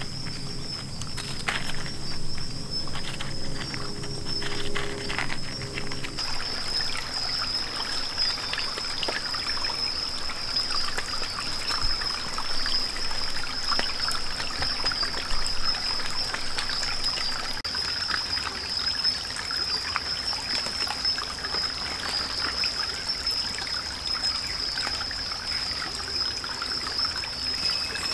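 Shallow forest stream trickling over stones, with a steady high-pitched drone above it.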